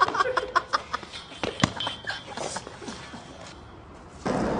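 Scattered sharp clicks and knocks, then about four seconds in a steady rolling noise sets in: skateboard wheels rolling on pavement.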